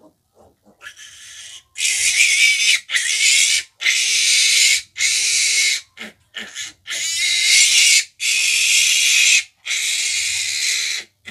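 Piglet squealing in a string of long, loud, high-pitched screams while it is held and injected in the neck with a vitamin B-complex shot.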